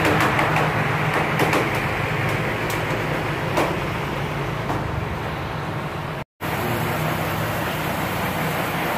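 Six-cylinder Fuso diesel engine running steadily, driving a slipway winch through a reduction gearbox as the drum hauls a boat up on its steel cable. The sound drops out for a moment about six seconds in.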